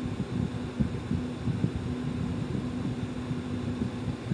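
Hands mixing soaked moong dal and wheat flour in a steel bowl: soft, irregular dull thuds and rustling, over a steady low hum.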